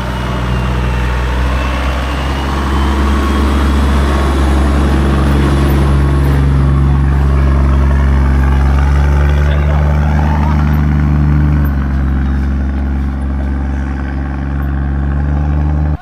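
Toyota Land Cruiser 80 series engine pulling at low revs as the four-wheel drive crawls up a steep dirt track right past the microphone, a steady deep note that shifts pitch about three-quarters of the way through.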